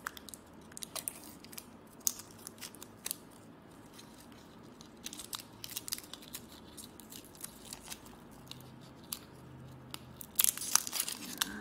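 Hands handling a roll of washi tape: scattered small clicks and crinkles as fingers pick at the roll, with a louder, busier run of crackling near the end.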